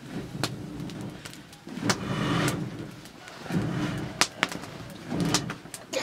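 Wood fire crackling with several sharp pops, among repeated low, muffled bursts about a second long each.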